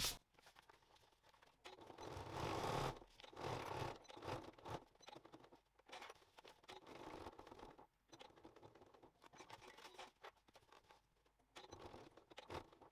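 Faint, irregular rustling and scraping of stiff canvas fabric being handled and slid into place at a sewing machine, with a few light clicks.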